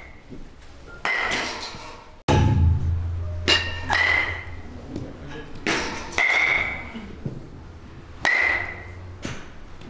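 Bat striking baseballs about five times, roughly two seconds apart, each hit a sharp ping with a short metallic ring. A low steady hum runs underneath from about two seconds in.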